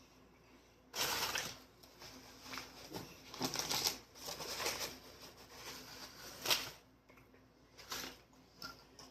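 Close-up eating sounds of a sandwich being bitten and chewed, coming in irregular crackly bursts, the loudest about a second in and about six and a half seconds in.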